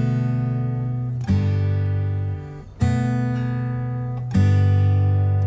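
Background music of strummed acoustic guitar chords, a new chord struck about every second and a half and left to ring and fade.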